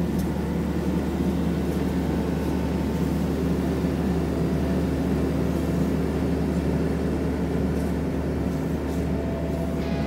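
Diesel engine of a Kubota mini excavator running steadily under load, driving a hydraulic auger that bores a post hole in dirt.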